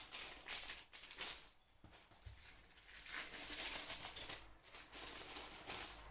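Packaging crinkling and rustling irregularly as a greased kit part is unwrapped by hand.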